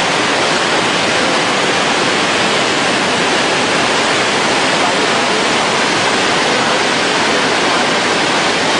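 Swollen floodwater rushing in a dense, unbroken noise that does not change.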